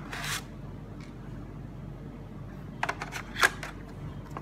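Hands handling a smartphone's retail box and its packed accessories: a short rustle at the start, then a cluster of light clicks and taps about three seconds in, the sharpest near the middle of that cluster.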